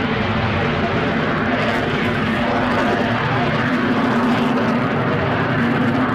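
Lockheed U-2's jet engine running steadily: an unbroken rush of noise with a low hum underneath.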